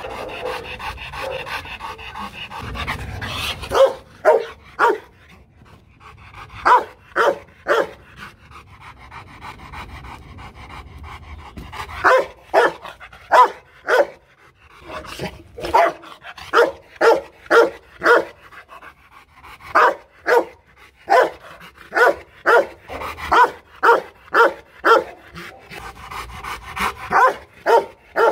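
Rottweiler panting for the first few seconds, then barking loudly in repeated clusters of two to six short barks with brief pauses between.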